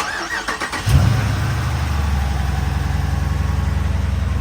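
Car engine cranking on the starter for about a second, then catching and settling into a steady idle.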